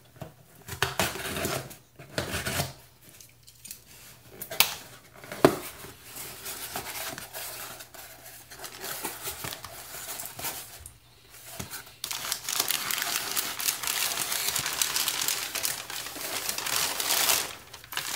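Cardboard shipping box being opened by hand: packing tape tearing and cardboard flaps rustling, with a few sharp snaps. About two-thirds of the way through it turns into a long stretch of crinkling packing paper being pulled apart.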